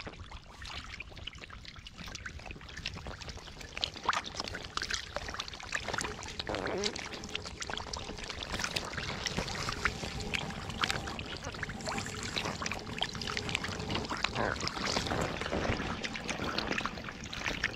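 Shallow muddy water sloshing and splashing irregularly as hands work through it, with many small scattered splashes.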